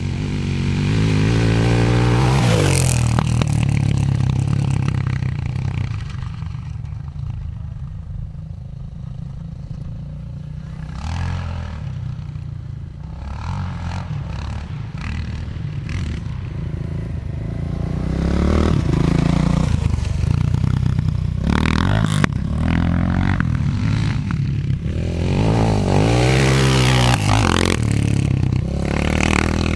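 KLX700R dirt bike's engine revving up and easing off as it is ridden around a dirt track. It comes loudest as it passes close about two seconds in and again in the last few seconds, its pitch sweeping down as it goes by, and is fainter in between while the bike is further off.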